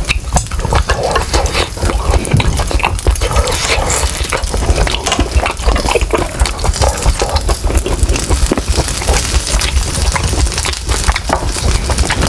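Close-miked wet chewing and mouth smacking, with a dense run of small clicks, over the crackling sizzle of pork butt slices on an electric grill.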